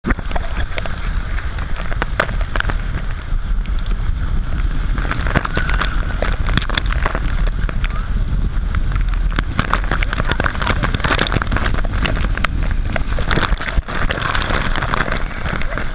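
Hydrotherapy whirlpool bath jets churning the water: a steady, loud low rumble with constant splashing and bubbling crackle.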